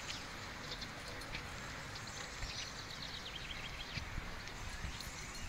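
Faint outdoor background: a steady low rumble with scattered high chirps and clicks, including a short run of chirps midway through.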